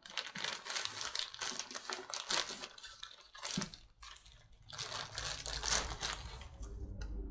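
Clear plastic bag crinkling and rustling in bursts as a toy telescope and its cardboard insert are pulled out of it, with a short pause about four seconds in.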